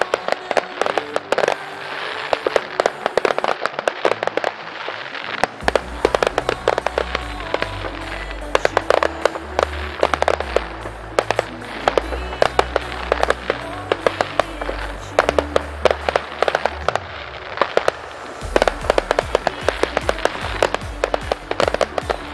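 Fireworks and firecrackers going off in a dense, irregular run of bangs and crackles. An electronic dance track plays over them; its bass comes in about six seconds in and drops out briefly near the seventeen-second mark.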